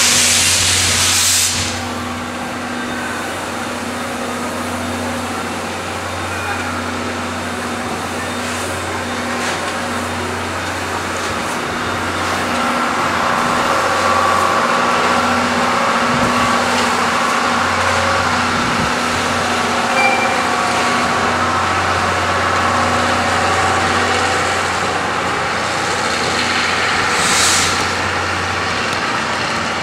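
C57 steam locomotive pulling slowly out of a station: a burst of steam hissing at the start and another near the end, over a steady low hum.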